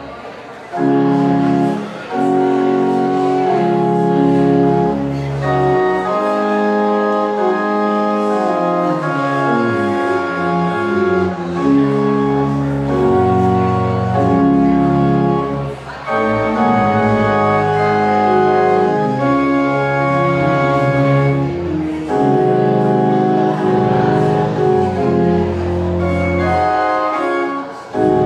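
Pipe organ playing a postlude at the close of a service: sustained chords over a moving pedal bass, with brief breaks between phrases.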